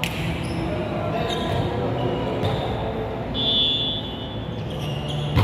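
Volleyball rally in a large gym hall: the ball is struck with sharp slaps, the loudest hit coming at the very end, and a short high squeak sounds a little past halfway, over a murmur of players' voices.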